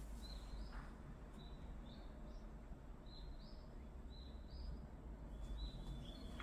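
Faint bird chirping: short notes, many stepping up in pitch, repeating about once a second over a low steady hum.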